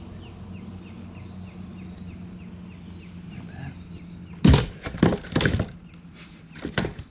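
A cluster of sharp, loud knocks and clatters starting about four and a half seconds in, with two more near the end. Under them, faint short chirps repeat about three times a second.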